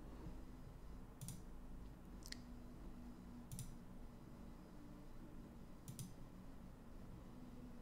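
Four faint, sharp clicks at uneven intervals over a low steady hum.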